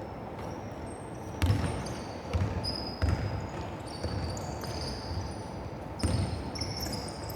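A basketball bouncing on a hard court, a few separate thuds, with many short high-pitched squeaks over a steady background hiss.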